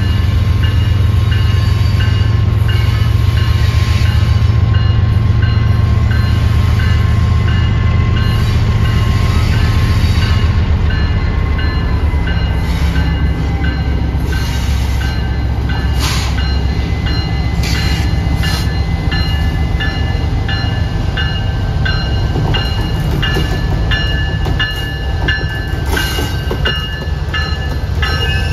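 A train going by: a heavy low locomotive rumble that eases off about ten seconds in, with a thin high whine and evenly repeated metallic clinks over it.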